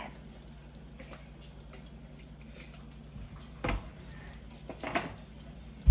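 Light clicks and two sharper knocks, about three and a half and five seconds in, from utensils or cookware being handled in the kitchen, over a low steady hum.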